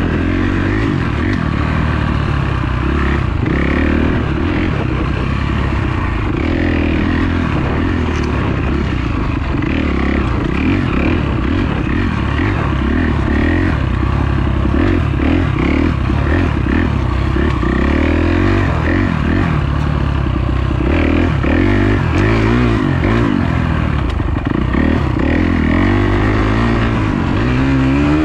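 Dirt bike engine running continuously under constantly changing throttle, heard close up from a handlebar-mounted camera; the revs climb near the end.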